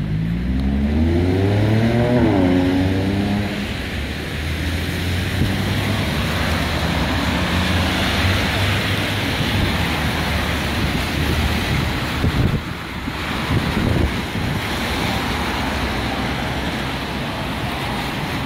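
A road vehicle accelerating, its engine note rising and dropping back at a gear change about two seconds in. Then steady traffic noise with the hiss of tyres on a wet street in the rain.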